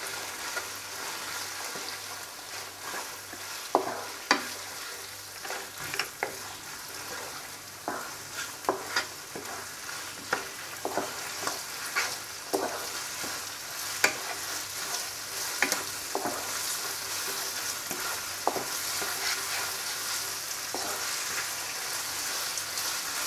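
Cubed boneless chicken and chopped onion sizzling in oil in a wok, a steady hiss, while a wooden spatula stirs them, knocking and scraping against the pan in irregular sharp clicks every second or so.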